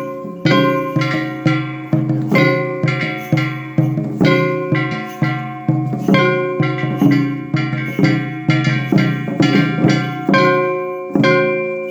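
Shishimai lion-dance accompaniment: a taiko drum and a small hand gong struck together in a quick, driving rhythm, about two to three beats a second, the gong ringing on between strokes.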